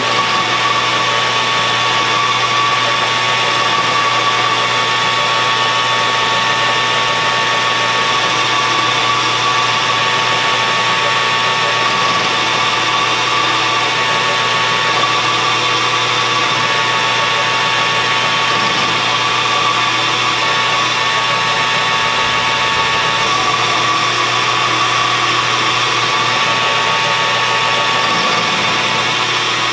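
Metal lathe running steadily while a carbide tool cuts a point on a steel bar, a steady whine with the hiss of the cut.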